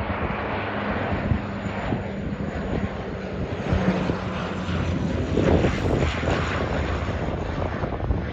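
Bombardier Dash 8-400 (Q400) twin turboprop droning low overhead on landing approach, its Pratt & Whitney PW150A engines and propellers giving a steady low hum. The sound swells to its loudest about five and a half seconds in as the aircraft passes closest.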